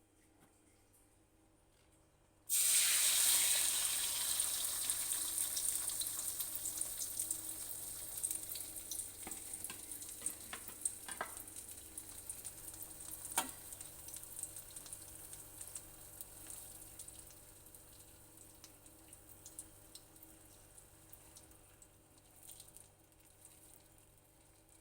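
Beaten egg for an omelette hitting hot oil in a frying pan: a sudden loud sizzle starts about two and a half seconds in, then slowly dies down with scattered crackles and pops.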